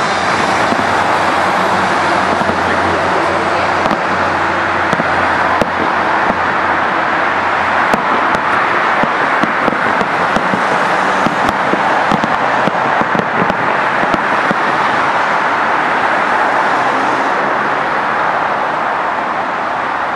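Road traffic going by: a city bus passing close with a low engine hum for the first several seconds, then a steady stream of passing cars. Scattered sharp pops of distant fireworks cut through the traffic noise.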